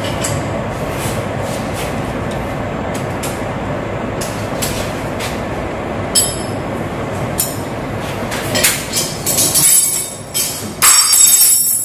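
Steady mechanical running noise of a metal-turning lathe in a machine shop, with occasional sharp metal clinks of tools and calipers being handled. About ten seconds in the running noise drops away and a quick run of louder metallic clanks and clinks follows.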